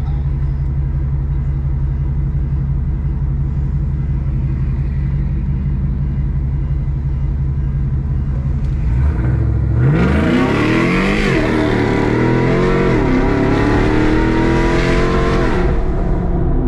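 Car engine running steadily at low revs, then revving hard about nine seconds in, the pitch climbing and dipping several times before dropping back near the end.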